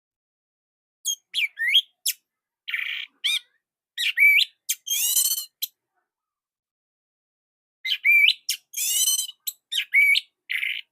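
Orange-headed thrush singing: two bursts of quick, varied notes, gliding whistles mixed with harsh rasping notes, the first starting about a second in and the second near the end, with a pause of about two seconds between them.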